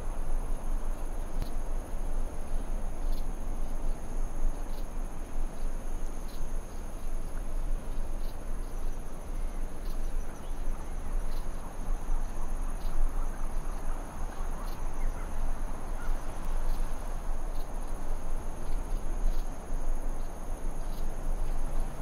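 Wind blowing steadily with a low rumble, under a continuous high-pitched insect trill and faint short chirps about once a second.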